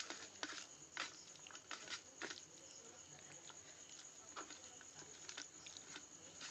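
Fingers mixing rice and potato curry in a steel bowl: soft, irregular wet squishes and clicks. A steady high cricket trill runs behind them.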